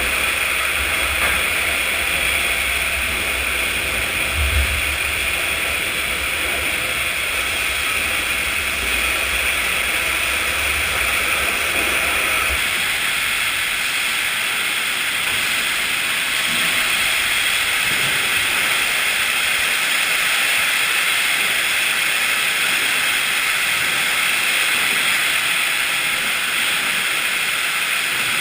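Sawmill machinery running steadily, a continuous loud hissing noise with a low rumble underneath that drops away about halfway through.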